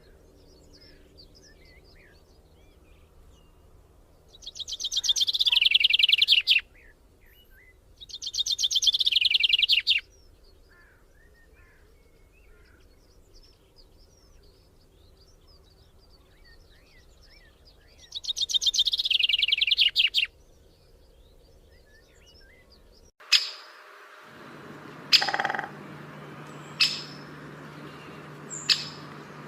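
Kincrong bird singing three loud, fast trilled phrases, each about two seconds long and falling in pitch, with faint chirping between them. Near the end the background changes to a steady low hum with a few short, sharp chirps.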